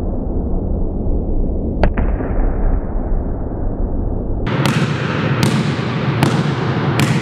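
A ball being dribbled on a sports-hall floor, its bounces about every 0.8 s in the second half, each ringing in the hall. Before that, a steady rumbling noise with one sharp knock about two seconds in.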